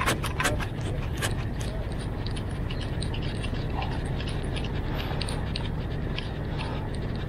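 Light clicks and ticks, loudest and closest together in the first second and a half, then fainter and scattered, over a steady low rumble.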